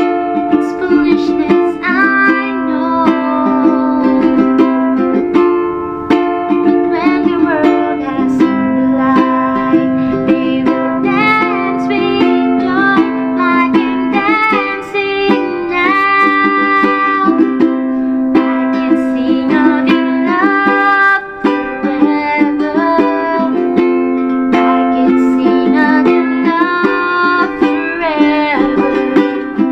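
D&D all-mahogany tenor ukulele being played as a sound test: a tune with held chords under a picked melody line, the chords changing every few seconds.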